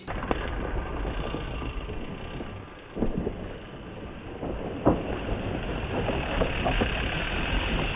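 Mountain bike rolling along a rough trail: steady tyre and wind rumble with rattling, and a few sharp knocks about 3 and 5 seconds in.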